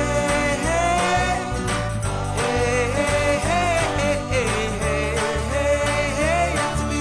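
Background pop music with a steady beat and a gliding, wordless melody line: an instrumental break.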